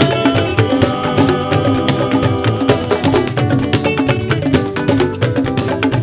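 Fuji music instrumental passage: busy drum and percussion strikes over held melodic notes.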